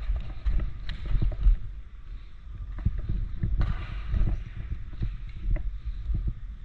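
Uneven low rumbling from wind and handling noise on a body-worn microphone, with scattered faint clicks and a short hissy rustle about three and a half seconds in.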